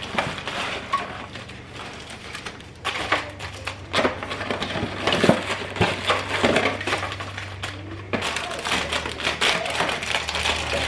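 Plastic snack packaging crinkling as it is handled, with irregular light knocks and clicks as packets are set into plastic organizing trays on a cabinet shelf.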